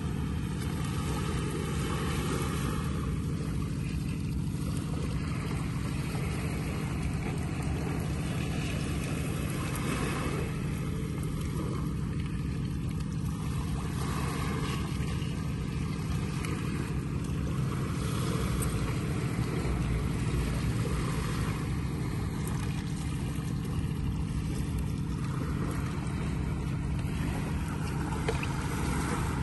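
Small boat's motor running steadily, a constant low hum with a haze of wind and water noise.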